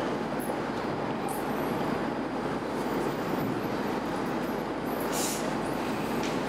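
Steady rushing background noise with no speech, with a brief soft hiss about five seconds in.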